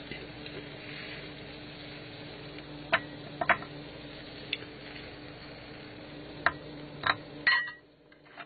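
A steady low hum with about six sharp clicks and clinks spread over the middle and later part, of utensils knocking against the cooking pan and a china plate as lamb chops are moved onto the plate.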